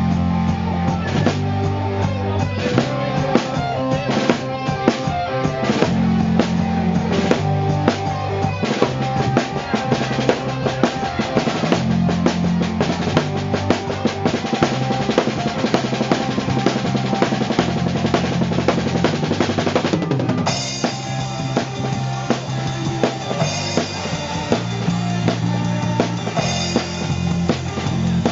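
Rock music with a full drum kit (kick, snare and rimshots) over a sustained bass line; the sound changes abruptly about twenty seconds in, brighter in the highs.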